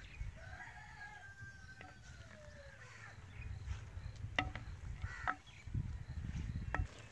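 A rooster crowing in the distance, one long call that falls in pitch near its end. A few sharp clacks follow from a ladle knocking against a clay cooking pot as minced meat and green chickpeas are stirred, over a low rumble.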